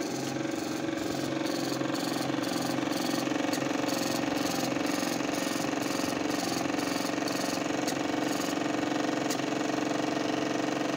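Sartorius lab printer printing a calibration report: a steady mechanical running noise with regular ticks about three times a second as the paper advances line by line. The ticking gives way to a few single clicks near the end.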